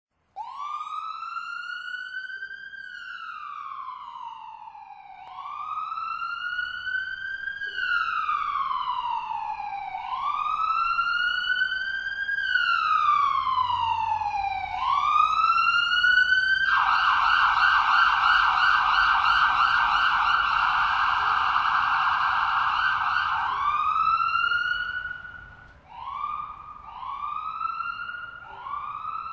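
Distant ambulance siren. It starts with a slow rising-and-falling wail that grows louder, switches about halfway to a rapid yelp for several seconds, then returns to shorter wails.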